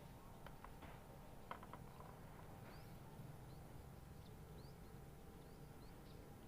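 Near silence: faint outdoor ambience with a few soft clicks in the first two seconds and several faint, short, high rising chirps.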